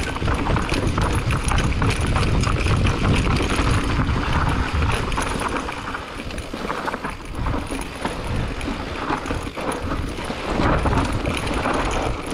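A Specialized Turbo Levo e-mountain bike riding over rough trail: wind rushing over the microphone, tyres rolling, and a steady patter of clicks and rattles from the bike. It eases off a little in the middle and picks up again near the end.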